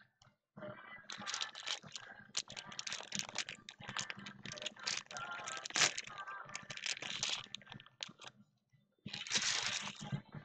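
Topps baseball cards handled and flicked through by hand: a fast run of small clicks and cardboard rustles, with a louder, longer rustle about nine seconds in.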